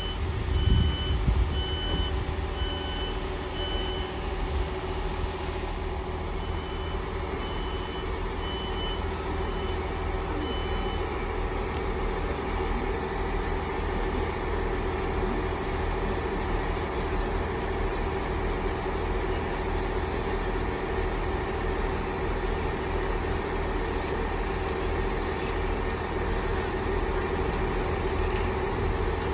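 Class 158 diesel multiple unit standing at a platform, its underfloor diesel engine idling steadily. Its door warning beeps sound as a run of short, evenly spaced high pulses at the start and again for a few seconds shortly after.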